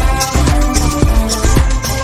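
Background pop music with a steady drum beat and strong bass.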